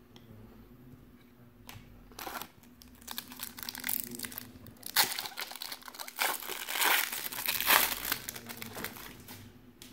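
A foil wrapper of a 1993-94 Fleer Ultra basketball card pack being torn open and crinkled by hand. The rustling starts about two seconds in, comes in bursts and is loudest in the second half before dying away near the end.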